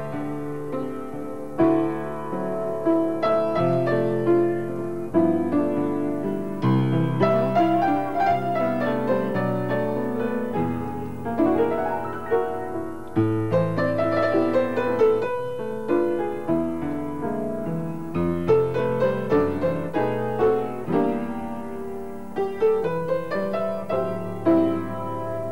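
Solo piano playing a flowing tune, with chords under a melody.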